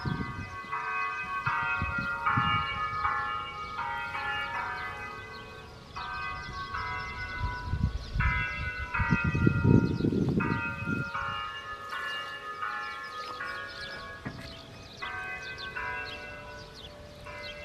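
Church bell chimes playing a slow melody, a new note about every half second. A low rumble rises under them near the middle.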